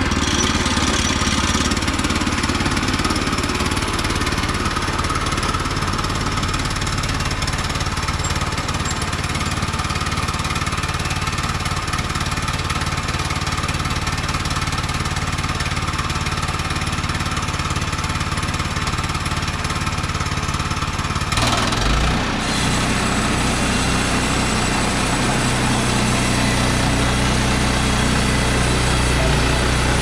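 Engine of a Woodland Mills HM122 portable bandsaw mill running steadily while the mill saws a spruce log. The sound changes abruptly a little over two-thirds of the way through, then carries on with a deeper hum.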